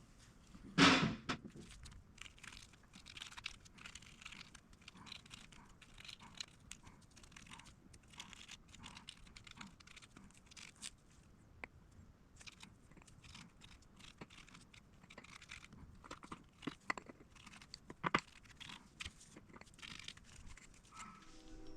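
Rustling, scraping and light clicks of things being handled, with one louder knock about a second in.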